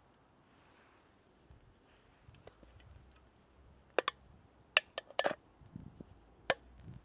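Empty aluminium drink can handled in the hand, giving several sharp metallic clicks and crinkles, most of them bunched past the middle.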